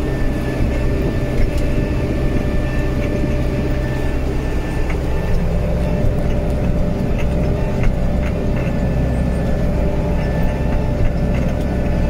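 Tractor engine running steadily under load, heard from inside the cab, with a steady high whine over the drone, as it drives a rotary hay tedder turning grass.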